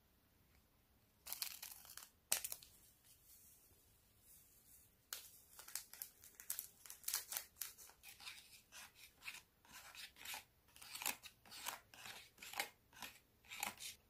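Scissors cutting open a small foil-lined powder packet, with a sharp snip about two seconds in. From about five seconds in there is a run of quick crisp taps and scrapes as the egg powder is shaken out of the packet and stirred into water in a plastic tray with a small plastic spoon.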